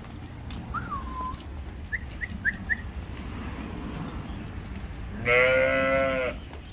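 A sheep bleats once, loud and about a second long, near the end. Before it come a short falling chirp and then four quick high chirps, faint, like a small bird.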